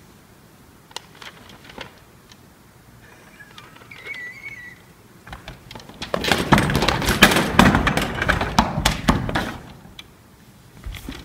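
Metal folding chairs, a table and props clattering and crashing onto a stage floor in a staged slapstick fall, a dense run of bangs lasting about three and a half seconds, starting about six seconds in. Before it come a few light knocks and a short squeak.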